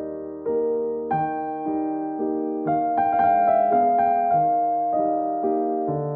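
Background music: soft piano or electric piano playing slow sustained chords, with a new chord struck about a second in and another near three seconds.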